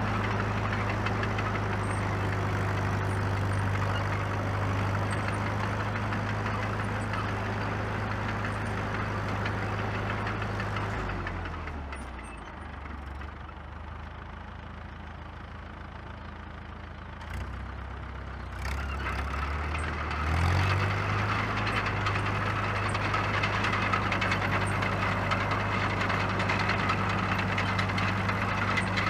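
1949 Caterpillar D2 crawler's four-cylinder diesel engine running steadily as it drives. A little over a third of the way in, it fades and drops to a lower, slower note for several seconds, then speeds back up and comes back to full strength.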